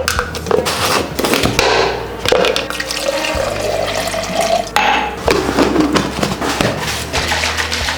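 Tap water running into a sink, filling a container, its pitch rising as it fills, amid repeated clinks and knocks of dishes.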